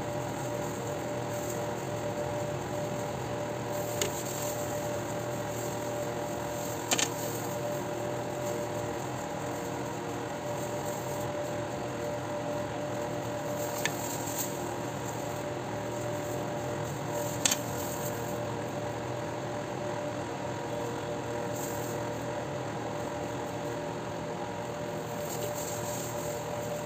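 A steady mechanical hum made up of several held tones, broken by a handful of brief sharp clicks.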